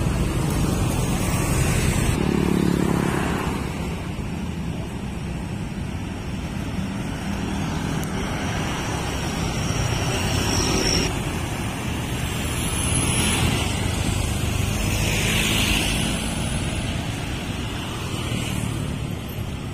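Road traffic on a town street, cars and motorcycles going by, swelling and fading several times over a steady rumble.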